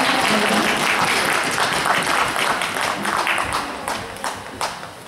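Audience applauding at the end of a figure-skating program. The applause dies down into a few scattered claps near the end.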